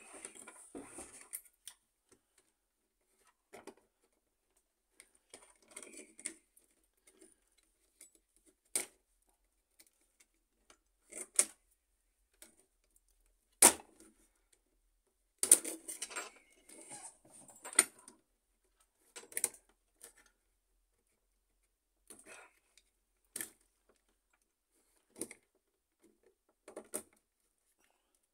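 Scattered light clicks, taps and scrapes of hard plastic and metal being handled: a screwdriver working at the plastic end cap of a laser-printer fuser's heating-element holder, with one sharper click about halfway through.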